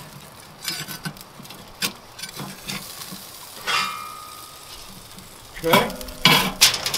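Metal spatula scraping and clicking against a kamado grill's steel cooking grate as a smoked pork shoulder is pried loose, with a brief scraping squeal about four seconds in. Metal tongs then clatter on the grate as the meat is lifted, the loudest sounds, about six seconds in.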